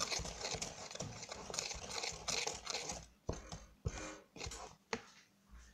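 A metal utensil stirring dry flour mix in a plastic bowl: fast scraping and clicking against the bowl, thinning out to a few separate taps about three seconds in, with a sharper knock near the end.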